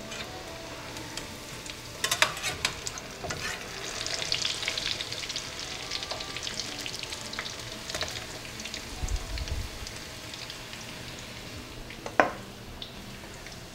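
Shami patties of ground meat and chickpea sizzling and crackling as they fry in a pan. A few sharp clicks come about two seconds in, and one loud tap near the end.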